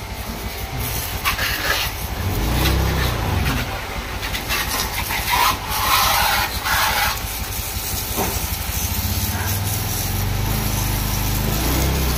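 Small 15-volt DC high-pressure water pump, rated 250 psi / 17 bar, running with a steady low hum. Its thin jet hisses and splatters against a motorcycle's wheel and bodywork, louder for moments about a second and a half in and again between about five and seven seconds.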